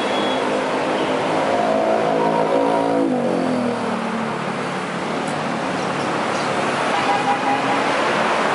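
Busy road traffic passing, with one vehicle's engine going by close about three seconds in, its pitch dropping as it passes.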